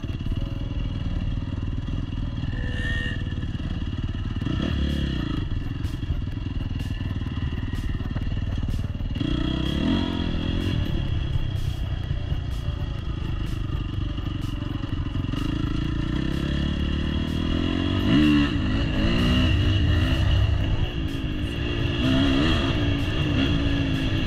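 Dirt bike engine running under throttle, its revs climbing and dropping several times, most sharply about eighteen seconds in.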